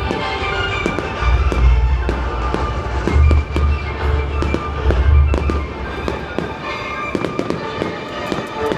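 Aerial fireworks bursting: several deep booms and scattered crackling, over music.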